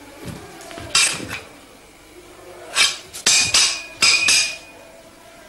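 Metal Kalaripayattu weapons clashing in sparring, ringing clangs: one strike about a second in, then a quick flurry of four or five clashes.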